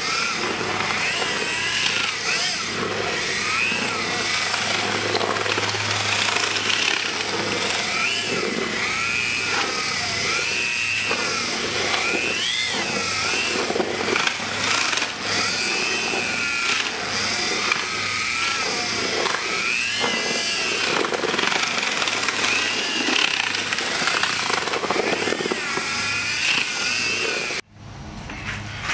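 Corded mud mixing drill with a paddle churning resin-coated pebbles in a galvanized metal tub: a steady motor hum and a whine that wavers up and down in pitch as the load changes, over a gritty noise of the stones. It cuts off suddenly near the end.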